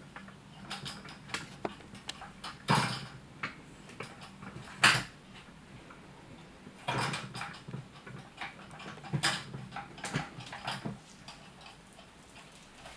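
A kitten batting and nosing at a plastic butterfly toy on a tabletop: irregular knocks, taps and rattles of paws and plastic, with about half a dozen louder ones spread through.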